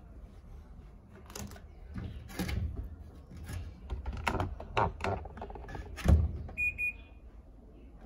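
Panasonic NA-F140B6 top-loading washing machine weighing its load at the start of a cycle: a low motor hum with irregular knocks and clunks as the wash plate jerks the laundry, and a few short high beeps near the end.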